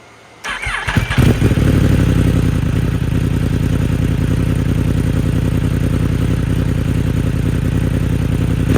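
Yamaha YZF-R1 inline-four motorcycle engine, exhaust fitted with its inner silencer baffle, cranked on the starter and catching about a second in, then settling into a steady idle. Near the end the revs rise briefly with a blip of the throttle.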